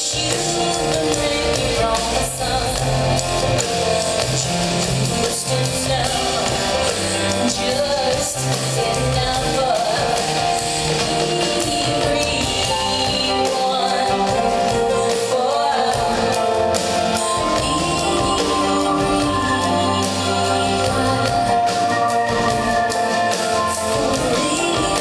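Live concert music: a woman singing over a band with drums and bass.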